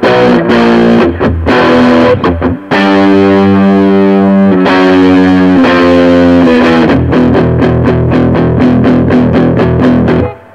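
Electric guitar played through a Mesa Boogie Recto-Verb 25 tube combo with EL84 power tubes, with gain and all tone controls set to the middle. It plays distorted chords: short choppy strums, then two long ringing chords, then fast repeated short chord strokes, about four or five a second, that stop just before the end.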